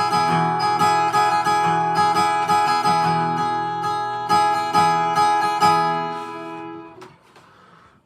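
Acoustic guitar strummed in a steady rhythm through the closing bars of a song. The last chord rings out and fades away about seven seconds in.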